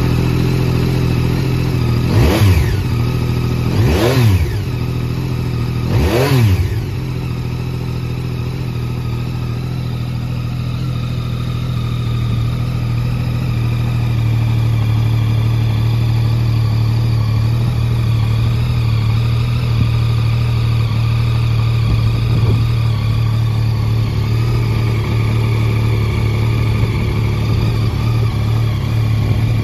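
Yamaha Tracer 9 GT's 890 cc inline three-cylinder engine, just started, revved three times in quick succession about two, four and six seconds in, then settling to a steady idle.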